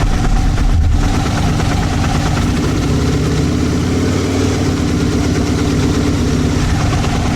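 First-generation Aprilia RSV1000 V-twin motorcycle engine running steadily just after being started.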